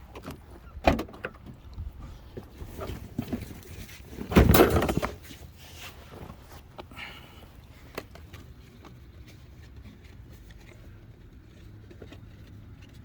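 Footsteps and scattered knocks and clicks of handling, with one loud rushing clatter lasting under a second about four seconds in.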